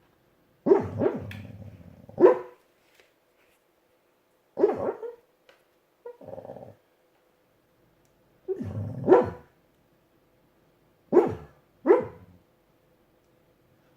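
A dog making short, gruff woofs, about seven of them at irregular intervals, a couple coming in quick pairs.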